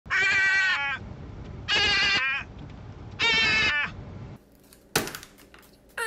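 Blue-and-gold macaw giving three loud, drawn-out calls with a clear pitch, each under a second long and about a second and a half apart. A single sharp click comes near the end.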